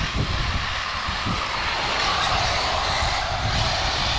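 Electric RC cars running on a dirt track: a hissing whine of motors and tyres on dirt that grows louder after about a second as the cars come past, over a low, uneven rumble.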